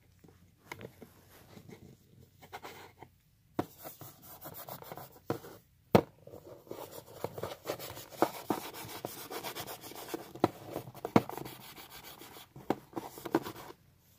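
A paper tissue wiping and rubbing over a toy table and small plastic toy figures, with scattered clicks and taps as the toys are knocked and set down, the sharpest about six seconds in.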